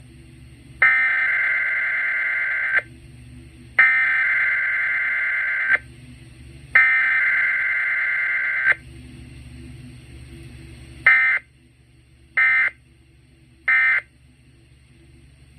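Emergency Alert System SAME digital data tones over FM radio. First come three raspy data bursts of about two seconds each, a second apart (the header). About two seconds later come three short bursts of a fraction of a second each (the end-of-message code).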